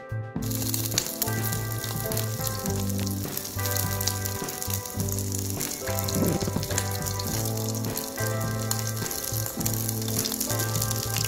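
Atka mackerel fillet sizzling in hot oil in a nonstick frying pan, a steady crackling hiss that starts about half a second in, with background music playing under it.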